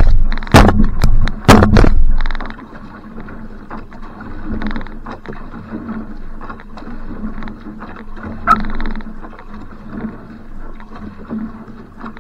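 Paddle strokes and water running along the hull of a one-person outrigger canoe (va'a) under way, with a small swell of splash on each stroke. Four loud, sharp knocks or splashes hit the microphone in the first two seconds, then the water noise goes on more softly.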